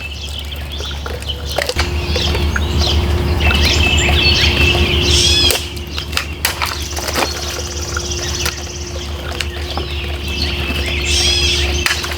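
Birds chirping and singing over a steady low rumble, with a few sharp clicks.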